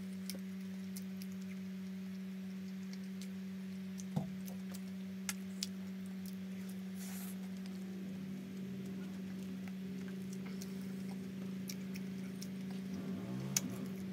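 A person chewing food close to the microphone, with sparse soft mouth clicks, over a steady low hum.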